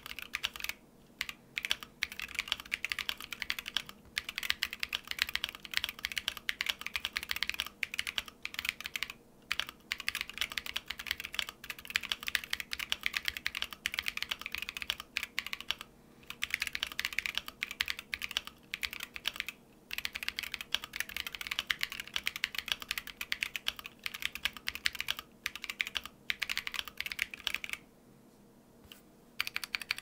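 Typing on a freshly built Keychron Q1 Pro, an aluminium-cased hot-swap mechanical keyboard: rapid clacking keystrokes in quick runs with short pauses. There is a break of about two seconds near the end.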